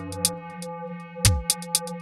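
Electronic music: a sustained synthesizer drone of several held tones under short hi-hat ticks, with a single kick drum hit a little over a second in. The drone is made by stretching each note with legato (clip) so that successive notes overlap.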